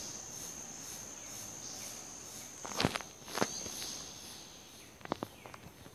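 Forest insects calling: a steady high-pitched whine that cuts off suddenly about three seconds in, over a fainter pulsing chirr. A few footsteps on dry leaf litter, two sharper ones near the middle and lighter ones near the end.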